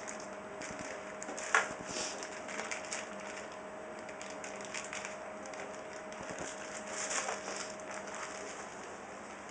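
Hands handling a camera and its packaging: scattered small clicks and rustles, with one sharper click about a second and a half in. A faint steady tone runs beneath and stops near the end.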